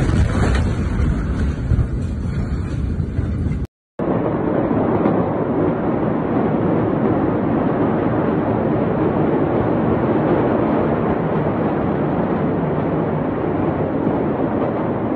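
Steady rushing noise with no distinct bangs, like wind on a phone microphone filming the distant burning port. For the first few seconds the noise is louder with more low rumble, then it drops out briefly at a cut between clips.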